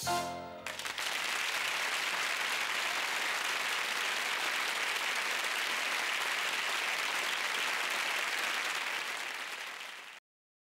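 A closing piano chord rings briefly, then an audience applauds steadily, fading a little before cutting off abruptly near the end.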